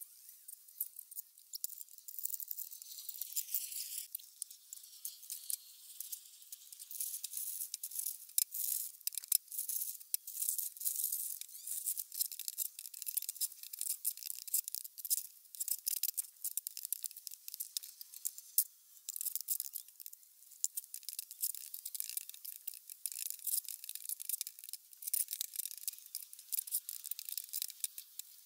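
Shovel scraping and turning sand-and-cement mortar in a steel wheelbarrow: a continuous run of gritty scrapes and small clicks.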